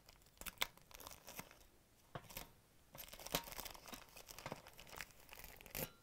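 Diagnostic-paperwork envelope being peeled off a dishwasher's metal access panel, its adhesive letting go: faint crackling and tearing in short scattered bursts of sound, with small clicks.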